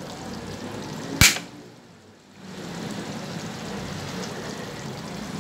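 A single sharp knock about a second in, then a steady low rumble that sets in about halfway through and carries on.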